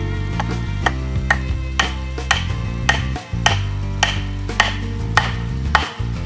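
Wooden baton knocking tapered wooden stool legs into holes drilled in a log seat, about two sharp wood-on-wood strikes a second at a slightly uneven pace. Background music plays under the knocks.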